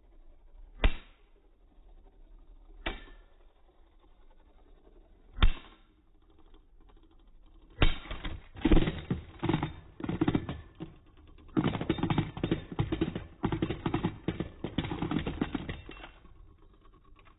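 Beyblade spinning tops clacking against each other and the plastic stadium: three sharp single clacks a couple of seconds apart, then a long run of rapid rattling clatter that stops near the end.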